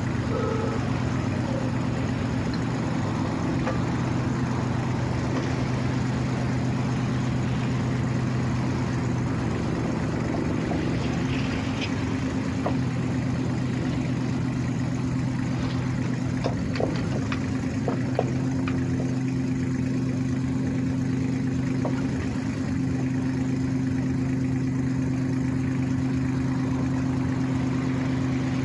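Kubota U-30-5 compact excavator's diesel engine running steadily at idle, with a few metallic clanks about halfway through and a brief dip and shift in the engine note near the end.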